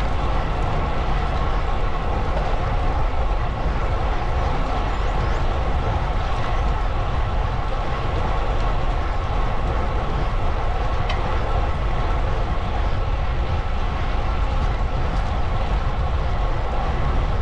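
Steady wind rumble on the microphone with road noise from a moving bicycle, unbroken and even in level.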